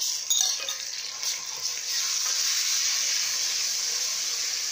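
Browned onions and ginger-garlic paste sizzling in hot oil in a cooking pot, a steady sizzle that grows louder about two seconds in. A few light clicks of the wooden stirring spoon against the pot come in the first second or so.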